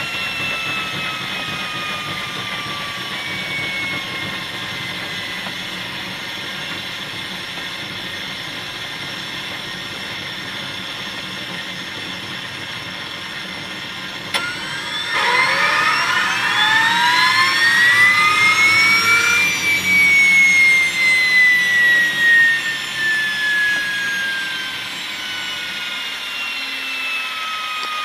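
Small turbine engine of a 3.4 m scale EC135 model helicopter whining as it winds down. About fourteen seconds in there is a sharp click, and the whine rises and grows louder for about five seconds, then falls steadily again as the engine coasts down.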